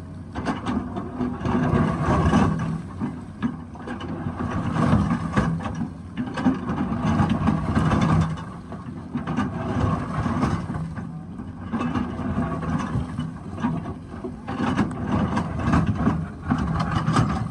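Excavator's diesel engine running, swelling and easing every few seconds as the hydraulics take load, with scattered short knocks.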